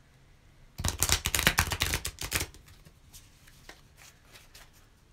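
A deck of oracle cards being shuffled by hand: a rapid, dense flurry of card clicks lasting about a second and a half, followed by a few light taps.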